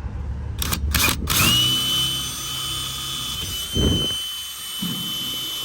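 Power drill with a small bit drilling a pilot hole through a door: after a few clicks, the motor spins up about a second and a half in and runs with a steady high whine.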